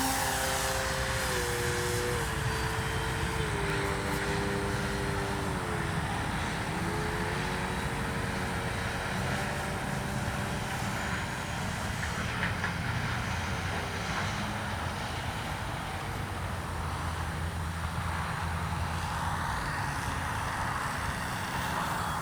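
Electric RC plane's brushless outrunner motor and 13-inch propeller whining in flight, the pitch stepping up and down with throttle changes on the landing approach. The whine fades out about halfway through, leaving a steady rushing background noise.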